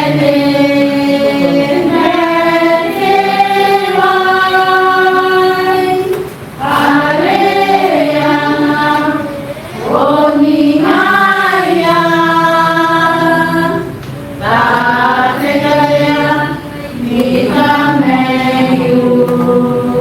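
Choir singing a hymn in long held phrases, with short pauses between phrases every few seconds.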